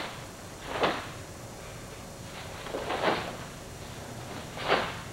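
Four short rushing bursts, one to two seconds apart, from a karate practitioner's strikes and moves in a kenpo form.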